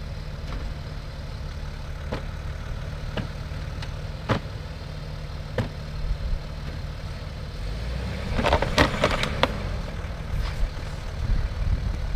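A 4x4's engine running low and steady as the vehicle tries to climb a muddy slope on traction boards, with scattered sharp clicks and knocks. About eight seconds in the engine works harder and a burst of loud knocks and crackles follows as the tyres bite on the boards and sticks.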